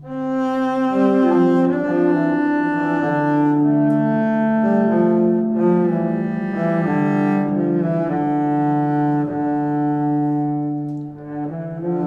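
Background music: a slow piece of held string notes, each changing pitch every second or so, that comes in sharply at the start.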